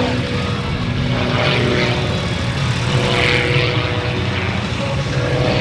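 Edge 540 aerobatic plane's six-cylinder piston engine and propeller running hard through a display manoeuvre, a steady drone with the propeller noise swelling twice, about a second and a half and three seconds in.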